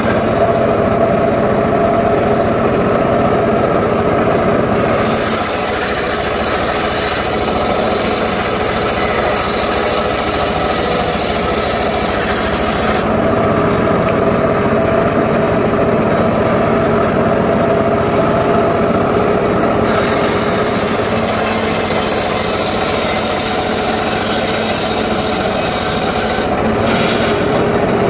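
Homemade circular saw running steadily while its blade cuts through sengon logs. A higher cutting hiss comes in twice, for several seconds each time, about five seconds in and again about twenty seconds in.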